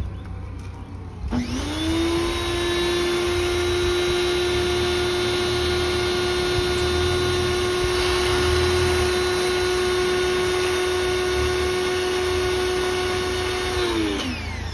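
Pressure washer starting about a second in: its motor hums up to speed and runs at a steady pitch with the hiss of the spray, then winds down and stops near the end.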